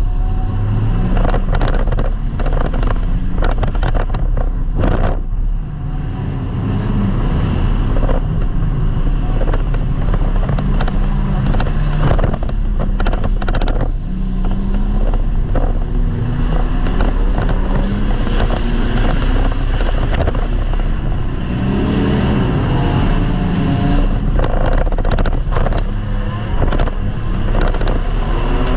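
Demolition derby car's engine running hard and revving up and down, heard from inside the stripped cabin, with many sharp bangs and knocks of the car being driven and hit.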